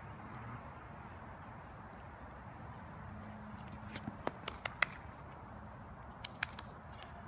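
Steady outdoor background with a cluster of sharp clicks and taps about four to five seconds in and a couple more a second and a half later, as a dog runs close by on grass.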